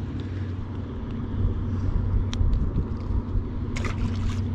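Steady low hum of a boat engine running, with a short knock or splash about three-quarters of the way in.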